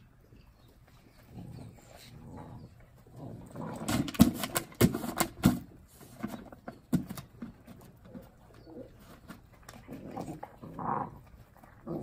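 Great Dane puppies at play, making short vocal sounds, with a quick run of sharp knocks about four to five seconds in.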